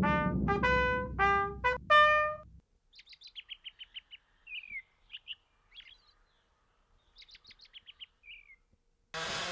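A short trumpet-like brass music phrase of quick notes stops about two and a half seconds in. Faint small-bird chirps and rapid trills with short falling notes follow, and a sudden loud burst comes in near the end.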